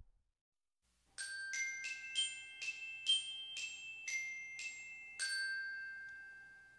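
A short glockenspiel-like melody added as music: about ten bright struck notes starting about a second in, the last one ringing on and fading away.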